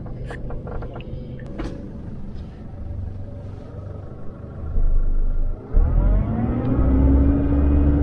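A 4x4's engine heard from inside the cabin: a low rumble with a few clicks, then about six seconds in the engine note rises and settles into a steady drone.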